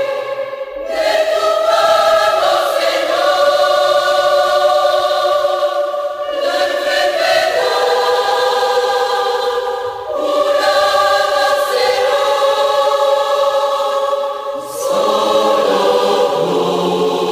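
A choir singing a Spanish-language hymn in sustained, held chords, with short breaks between phrases.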